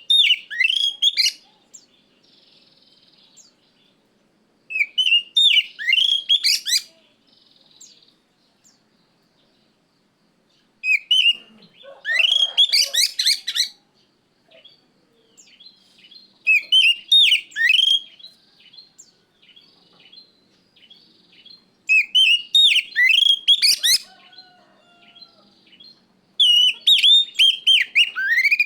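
Oriental magpie-robin singing: loud bursts of fast, varied whistled notes, each phrase about two seconds long, repeated every five or six seconds.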